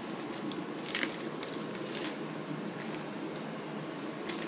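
Clear plastic packaging crinkling and rustling as it is handled, with a few sharper crackles about one and two seconds in.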